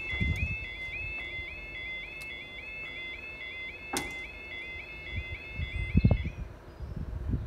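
UK level crossing yodel alarm sounding while the barriers come down, a rapidly repeating warbling tone that cuts off about six seconds in once the barriers are down. A sharp click comes about four seconds in, and low thumps come just before the alarm stops.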